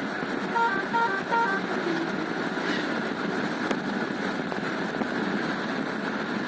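Steady road and engine noise of a car on the move, with a quick run of short horn toots about half a second to a second and a half in.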